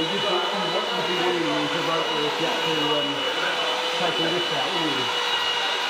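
Flex rotary polisher with a foam pad running steadily on a painted bonnet panel, a constant motor whine over a rushing whirr.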